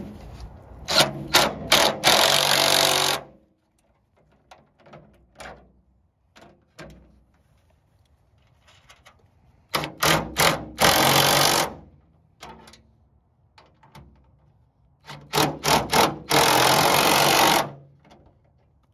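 Cordless power driver tightening the bolts of a fender flare, three times: each run starts with a few short trigger blips and then spins steadily for one to two seconds before stopping.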